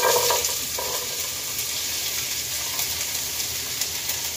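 Chopped onion and red and orange bell pepper dropped into a pot of hot oil, sizzling loudly the instant they hit and then frying with a steady hiss.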